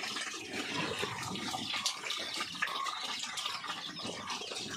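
Water running and splashing, with scattered small clicks and knocks.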